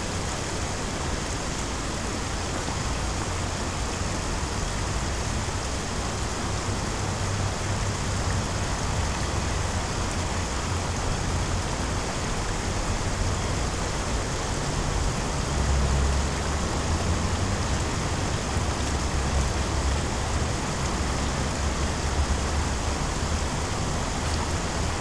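Steady outdoor background noise: an even hiss with a low, uneven rumble that grows stronger about halfway through.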